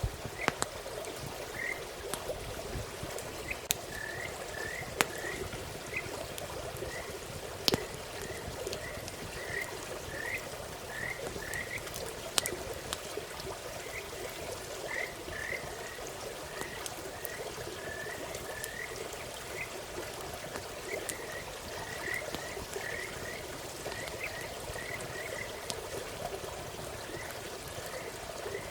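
Frogs calling: a chorus of short chirping calls repeated over and over, with a campfire giving sharp pops now and then.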